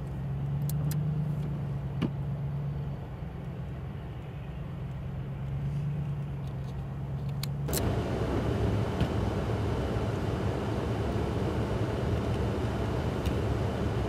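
An engine idling with a steady low hum. About halfway through it cuts to a louder, steady rushing of blizzard wind.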